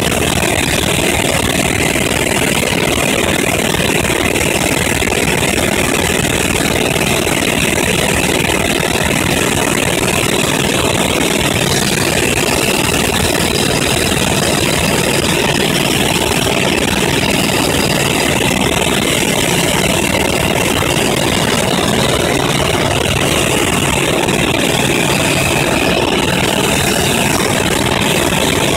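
Helicopter in flight: steady engine and rotor noise with a constant low hum, unchanging throughout.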